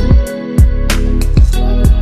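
Background music: a guitar-led instrumental with a steady beat of crisp percussion hits and a deep bass, briefly dipping in level about a third of a second in.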